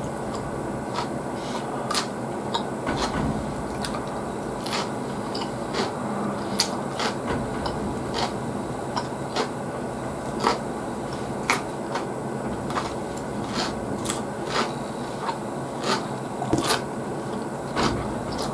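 Close-miked chewing of pickled vegetables: many sharp, irregular crunches and mouth clicks over a steady background noise.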